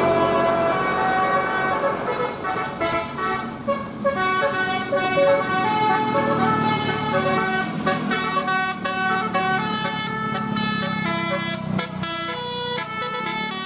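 Bus 'telolet' musical air horn playing a tune: several horn tones sounding together, stepping from note to note.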